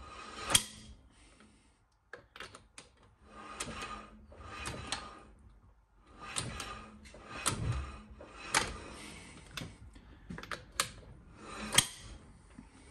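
A socket wrench knocking loose and undoing car wheel bolts: a string of sharp metal clicks and knocks, roughly one a second, with rattling in between.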